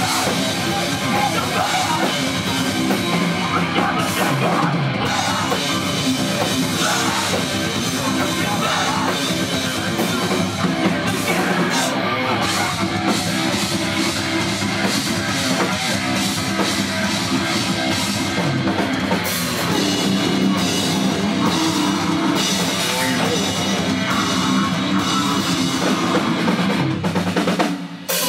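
Live heavy rock band playing electric guitars, bass guitar and a drum kit at full volume, dropping off briefly near the end.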